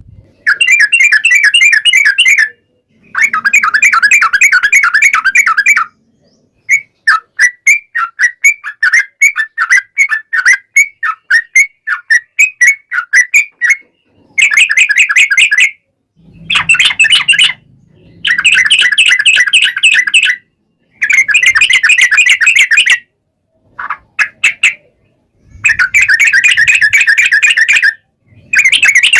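Yellow-vented bulbul (trucukan) singing loud, rapid chattering bursts of song two to three seconds long with short pauses between them, with a run of quick separate notes in the middle.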